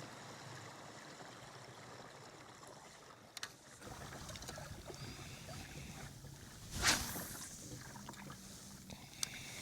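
Water moving and lapping against a kayak hull, with a few light clicks and one brief sharper sound about seven seconds in.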